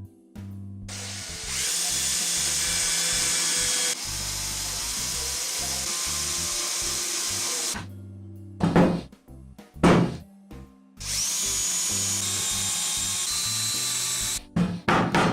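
Electric power tool running at a steady speed in two long spells, each spinning up at its start, with a few short knocks in between. Background music plays underneath.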